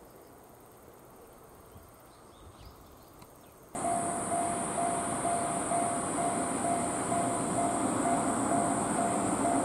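Japanese railway level-crossing warning bell ringing its repeating 'kan-kan' tone about twice a second, starting suddenly about four seconds in after faint quiet ambience; it signals an approaching train.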